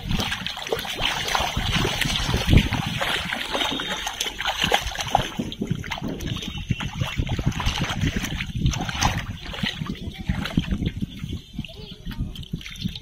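Irregular splashing and sloshing of shallow muddy water as hands grope for and grab fish, with one sharper, louder splash about two and a half seconds in.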